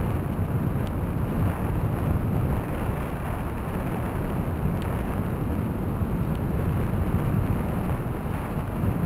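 Steady wind rush on the microphone of a bicycle-mounted camera, mixed with the rolling noise of bike tyres on an asphalt path, with a few faint ticks.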